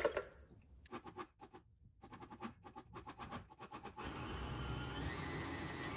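A run of light clicks and taps, then about four seconds in a high-power countertop blender starts up. It runs with a steady whir and a whine that rises in pitch as the speed is turned up, pureeing hot soup.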